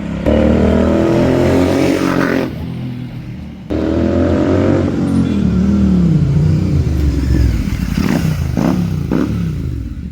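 Royal Enfield Continental GT 650 parallel-twin with an aftermarket Red Rooster exhaust, its dB killer removed, accelerating hard twice with the engine note climbing each time. It then falls away in pitch and ends with a few sharp pops near the end.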